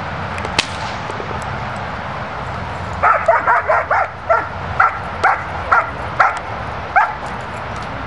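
German shepherd barking at the helper at the blind, the hold-and-bark of a Schutzhund protection routine. About three seconds in comes a fast run of sharp barks, then single barks about two a second, about a dozen in all.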